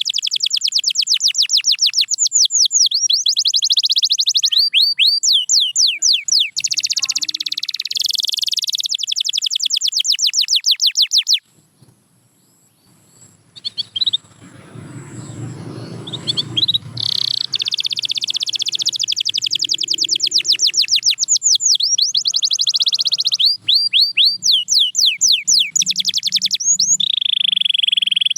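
Canary singing fast rolls and trills of rapidly repeated high notes. The song breaks off for a few seconds about halfway through; a low rumbling noise fills that gap before the singing resumes.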